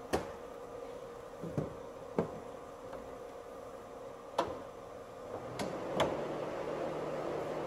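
Sharp clicks and knocks, about six spread out with the strongest near the start and about six seconds in, from the plastic engine cover and tools being handled, over a steady background hum.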